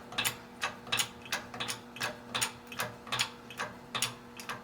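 20-ton hydraulic jack being pumped to press sheet metal into rubber, its handle and pump clicking sharply about five times a second, often in pairs. A faint steady hum runs underneath.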